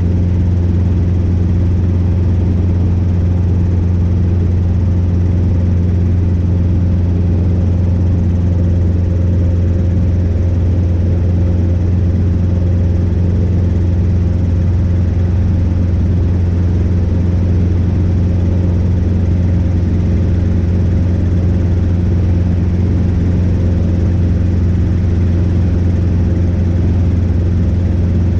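Robinson R22 helicopter in cruise flight: the steady drone of its piston engine and rotors, loud and unchanging throughout.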